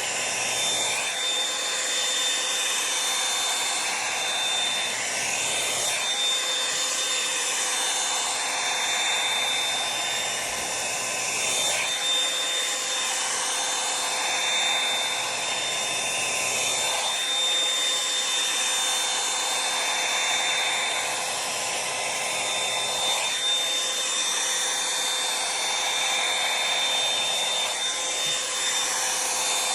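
Revlon One-Step hot-air brush dryer running steadily, its fan rushing with a thin, high motor whine. The rush of air changes every five or six seconds as the brush is drawn through the hair.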